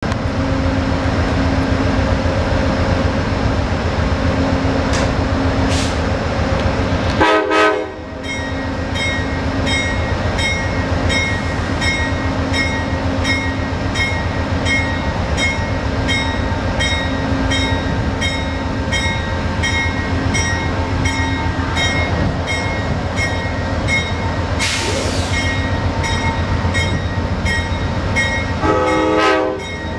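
Amtrak diesel locomotive running with a steady low engine rumble, sounding two short chords of its five-chime Nathan K5LA horn, about seven seconds in and again near the end. After the first blast its bell rings steadily, about every half-second, and a brief hiss of air comes a few seconds before the second blast.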